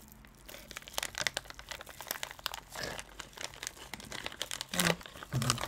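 Plastic bag packaging crinkling and rustling in irregular crackles as a sealed bag is handled and opened to take a cable out.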